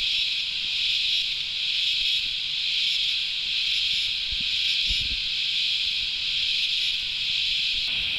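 Cicada chorus: a loud, steady high-pitched hiss that swells and eases gently about once a second.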